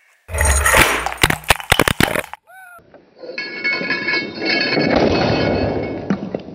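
A pressurized WD-40 aerosol can burst by a guillotine blade: a loud crash with a rapid clatter of sharp strikes lasting about two seconds. After a short break comes a long rushing hiss of escaping spray, duller and slowed down, swelling to its loudest about two seconds in before easing off.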